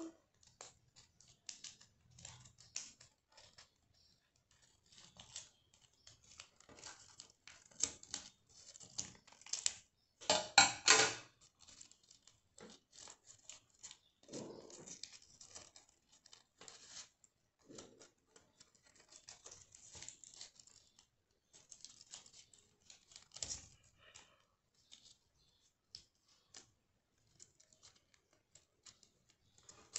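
Small scissors snipping through folded paper, and paper being handled and crinkled, in scattered short snips, rustles and clicks, loudest about ten seconds in.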